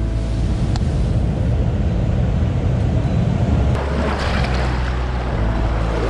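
Tide-pool water sloshing and surf washing over lava rock, heard from a camera held at the water's surface, with a heavy low rumble throughout. A wave surge makes the rush brighter and hissier from about four seconds in.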